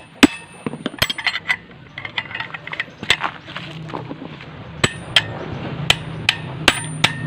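Metal hand tools clinking and tapping on the metal parts of a scooter's CVT during reassembly: sharp, irregularly spaced strikes, several ringing briefly, with some scraping between them. A low steady hum comes in about halfway through.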